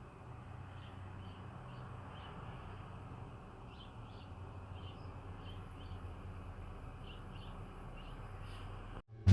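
Outdoor ambience: small birds chirping briefly every so often over a low steady hum, with a faint thin high whine in the second half. It cuts off abruptly near the end.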